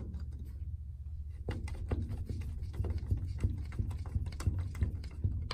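Screwdriver turning the height-adjustment screw of a sliding closet door's bottom roller, a quick irregular run of small mechanical clicks as the roller is raised to lift the door, with one sharper click near the end.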